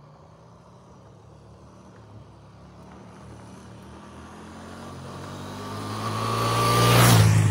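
A motor vehicle approaching, its engine hum and tyre noise growing steadily louder and peaking near the end.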